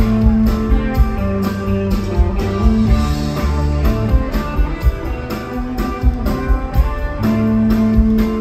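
Live band music: an instrumental passage with guitar lines over bass and drums keeping a steady beat.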